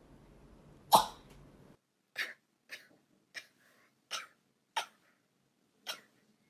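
A woman's sneezes: one loud, sharp sneeze about a second in, then, after an abrupt cut, six short, small sneezes in a row, each half a second to a second apart.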